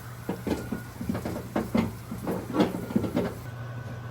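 A kitchen utensil knocking and clinking against a bowl while food is mixed: an irregular run of short knocks, about four a second, that stops after about three seconds.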